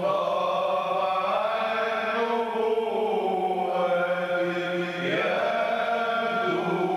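Men's voices chanting together, long held notes gliding slowly up and down over a steady low held note, amplified through microphones.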